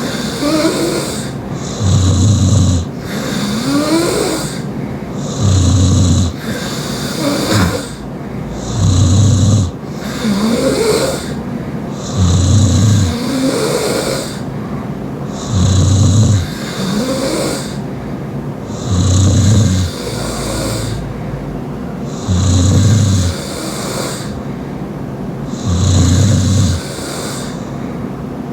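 Loud open-mouth snoring from a sleeper, one snore about every three and a half seconds, eight in all. Between some snores there is a fainter rising whistle.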